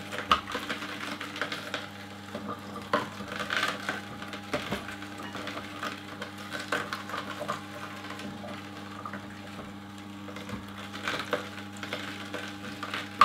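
Hurom Chef GH horizontal slow juicer running: a steady motor hum with irregular crunching and cracking as the auger crushes carrot pieces pushed down the feed chute.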